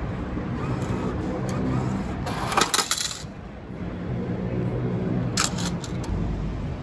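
Steady low engine or traffic rumble, with a short burst of clattering clicks about two and a half seconds in and a few more sharp clicks a little past five seconds.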